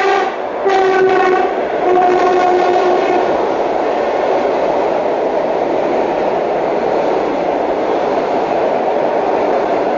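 ED4MKM-AERO electric train sounding its horn in three short blasts, the last a little lower in pitch, then the steady noise of the train's cars running past close by at speed.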